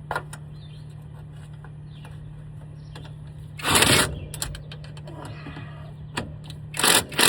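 A power tool spinning a socket in two short bursts, about halfway through and again near the end, as it tightens a steering-shaft bolt nut. A steady low hum runs underneath, with faint clicks of the tool and socket.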